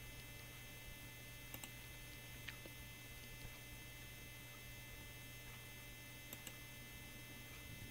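Faint steady electrical hum with a few soft clicks from a computer mouse: a pair about one and a half seconds in, one at about two and a half seconds, and another pair near six and a half seconds.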